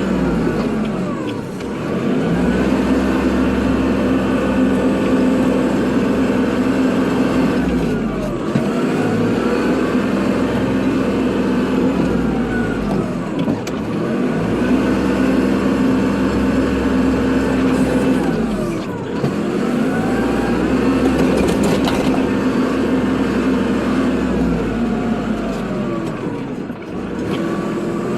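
Kubota tractor's diesel engine running steadily while plowing snow, its pitch sweeping down and back up about every five to six seconds as the load and direction change.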